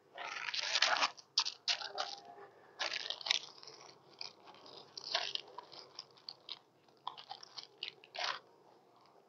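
Irregular crunching and scraping handling noises from hands working on the top of an open beehive's frames, with the longest stretch near the start and shorter crackles scattered after it.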